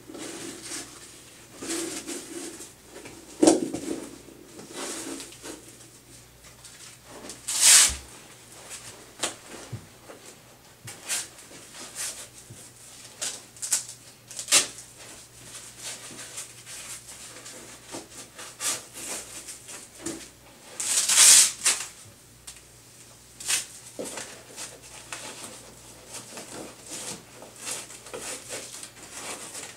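Backboard immobilization straps being pulled and fastened over a patient's body: scattered rustling and clicks, with two louder rasping pulls, one about a quarter of the way in and one about two-thirds through.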